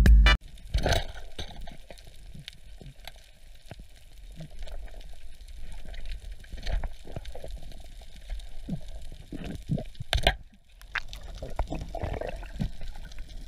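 Underwater sound picked up through a camera's waterproof housing while diving over a reef: a low, muffled wash of water with many small scattered clicks and crackles, and a louder pair of sharp knocks about ten seconds in.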